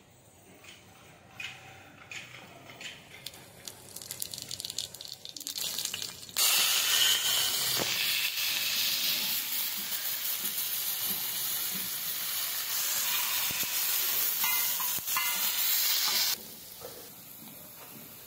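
Food frying in hot oil: scattered light crackles and clicks, then loud sizzling starts suddenly about six seconds in and cuts off abruptly some ten seconds later.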